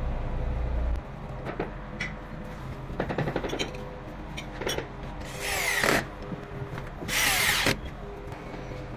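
Cordless drill running, cutting off about a second in. A few clicks and taps follow, then two short bursts of drilling, each under a second.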